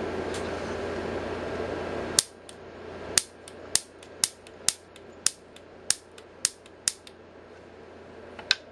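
Piezo grill igniter being clicked repeatedly, each click firing a high-voltage spark into the probe under test: about ten sharp snaps, roughly two a second, with a gap before the last one near the end. A steady background hum cuts out at the first snap.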